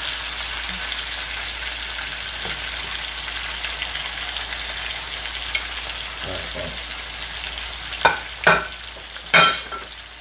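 Meat sizzling steadily in hot oil in a cast iron skillet. Three sharp clinks come near the end.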